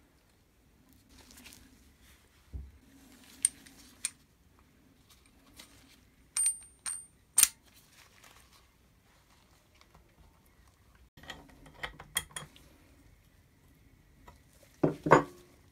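Metal parts of a drill press head clinking and tapping together as they are fitted by hand: scattered clicks and a few short metallic rings, with a louder clatter near the end.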